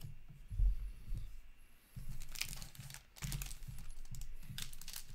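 Foil hockey card pack wrappers crinkling and rustling as the packs are handled, with a dull thump a little over half a second in.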